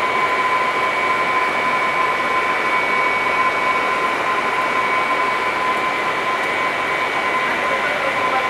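Steady drone of running machinery, an even noise with a constant high-pitched whine over it.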